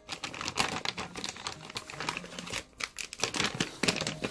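Clear plastic packaging bags crinkling and rustling in a rapid, irregular crackle as they are handled.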